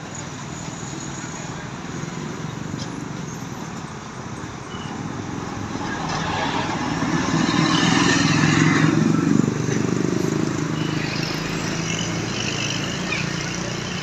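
Bus engine and road noise as a bus passes by on the road. The sound swells to its loudest about eight to nine seconds in, drops sharply just after, and settles back to traffic noise.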